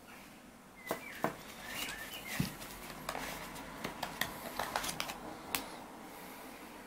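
Handling noise from the small glass and metal parts of a Kayfun Prime clone rebuildable tank atomizer: a string of irregular sharp clicks and taps as they are turned over in the fingers and set down. Faint bird chirps sound in the background.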